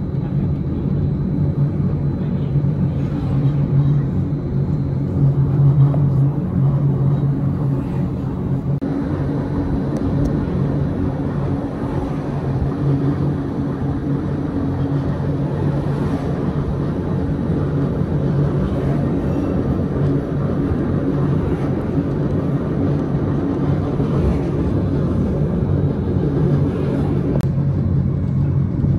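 Gornergrat Railway electric rack train running, heard inside the carriage: a steady low hum from the drive over a continuous rumble of the running gear.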